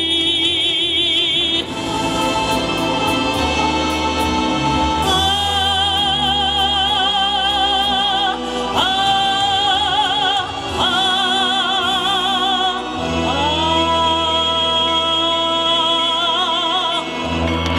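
A woman singing long, high held notes with wide vibrato over instrumental accompaniment. There is a short break of accompaniment alone a couple of seconds in.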